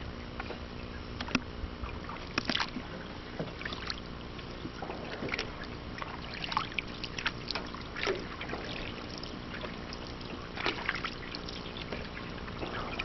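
Canoe being paddled: the paddle dips and pulls through the water, with irregular light splashes and drips.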